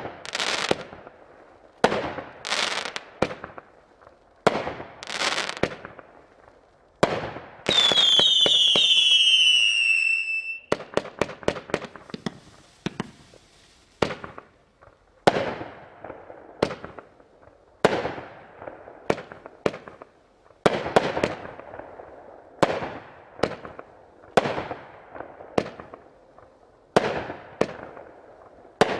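500-gram consumer firework cake (Magnus 60 Sec Plus) firing: a steady string of sharp shots and aerial breaks, about one every second or so, each fading out. About eight seconds in, several whistles go off together, falling slightly in pitch for a couple of seconds.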